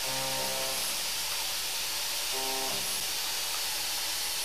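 Seco Super Turbo square shoulder milling cutter plunging into a metal block on a CNC machine: a steady hiss, with short stretches of steady tones near the start and again about halfway through.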